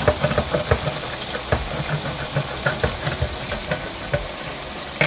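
Manual can opener cutting around the lid of a metal can in quick, irregular clicks and crunches, over the steady sizzle of food frying in a pan.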